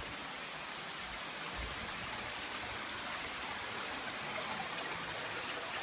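Steady rushing and trickling of a stream flowing through a cave.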